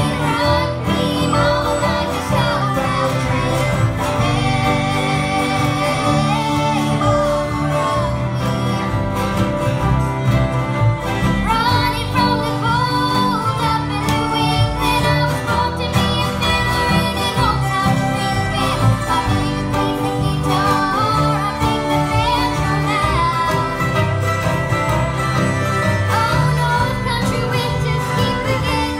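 A live bluegrass band plays at a steady, full level, with acoustic guitars strumming, mandolins, a bowed fiddle and an upright bass.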